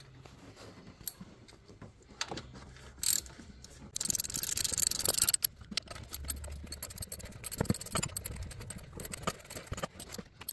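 Socket ratchet clicking as a 15 mm socket tightens the new alternator's mounting bolts. A fast run of ratcheting comes about four seconds in, followed by scattered clicks and knocks of metal on metal.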